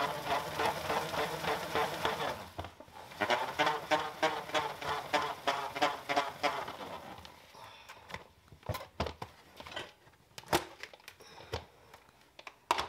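Hand-cranked plastic salad spinner turned by hand, its basket and gearing whirring in a rhythmic, pitched rattle as it spins water off freshly washed greens. It pauses briefly near three seconds and stops about seven seconds in, followed by a few light plastic knocks and clicks as the lid is handled and lifted off.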